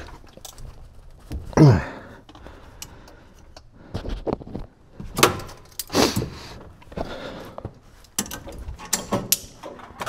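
Metal hand tools working on a furnace's gas pipe fitting: wrench and pliers clinking, knocking and scraping against the pipe at irregular moments as the joint is tightened, with a brief falling squeak about a second and a half in.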